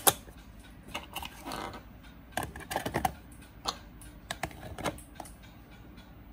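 Magnet-held acrylic and wooden lids being set onto an ant enclosure and nest: a run of sharp clicks and knocks, the loudest right at the start, with a short scrape about a second and a half in. The clicking stops about five seconds in.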